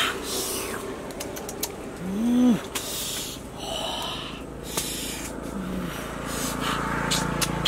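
A man's wordless eating noises: a short hummed exclamation that rises and falls about two seconds in, and breathy puffs and sniffs. Light clicks come from the langsat fruit being peeled with the fingers.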